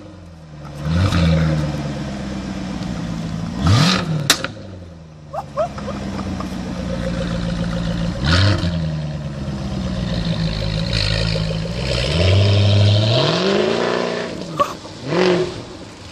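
Jaguar F-type R Coupé's supercharged 5.0 V8 exhaust, revved in about five short blips that each rise and fall back to idle. A sharp crack sounds as the revs drop after the second blip.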